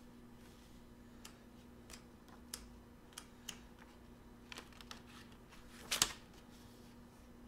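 Faint handling noise: scattered small clicks and rustles as a book's pages are leafed through and things are moved by hand, with a louder clatter about six seconds in when a drinking glass is picked up. A faint steady hum runs underneath.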